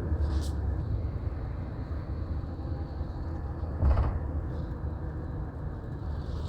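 Steady low rumble of a Greyhound coach's engine and road noise heard from inside the passenger cabin while it drives, with one brief louder noise about four seconds in.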